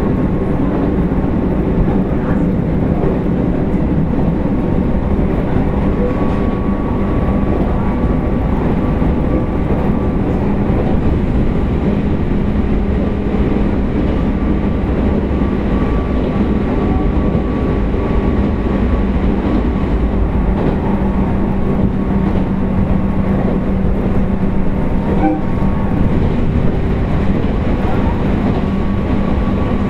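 Onboard running sound of an Abukuma Express 8100 series thyristor phase-controlled AC electric train under way: a steady low rumble of wheels on rail with an even electrical hum from the motors and control gear.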